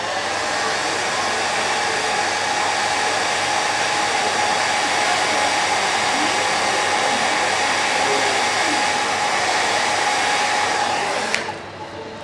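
Hand-held hair dryer blowing steadily, a rush of air with a steady motor whine, drying wet acrylic paint; it is switched off near the end.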